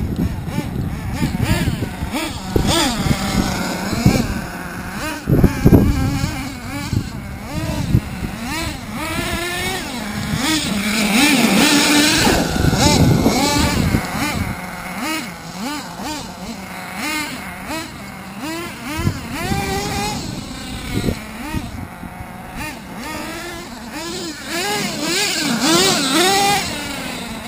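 Twin nitro engines of a Hot Bodies Lightning GTX2 radio-controlled monster truck, revving up and falling back again and again as the truck is driven.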